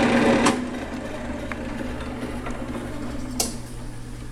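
Wilton 5816 floor drill press motor running steadily, then switched off with a sharp click about half a second in; the running sound drops away, leaving a quieter low steady hum, with another sharp click near the end.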